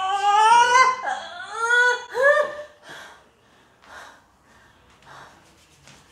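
A woman's high-pitched pained cries, several in a row with the pitch sliding upward, as deep-tissue pressure is worked into her teres major. They stop about two and a half seconds in, giving way to faint breathing.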